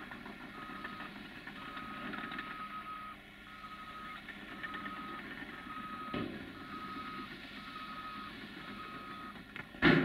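Reversing alarm beeping about once a second over the steady running of diesel earthmoving machines, with a thump about six seconds in and a loud bang right at the end.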